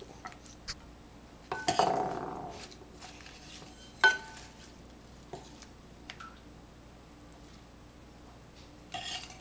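A metal serving spoon and a wooden salad server clink and scrape against a glass salad bowl and a ceramic plate as dressed salad is served. There is a loud ringing clink about two seconds in and a sharp clink about four seconds in, with a brief scrape near the end.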